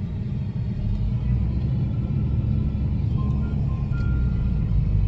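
Jeep Renegade Trailhawk driving through soft sand on lowered tire pressure, heard from inside the cabin: a steady low engine and tyre rumble, with a few faint short high tones near the end.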